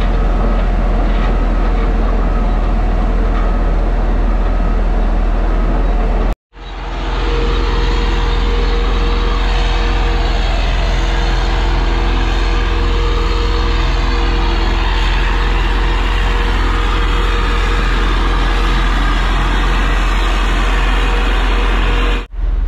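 Dynapac single-drum roller's diesel engine running steadily under load as it drives over the trench, compacting soil, with a heavy low rumble. The sound cuts out abruptly for a moment about six seconds in, then comes back just as steady.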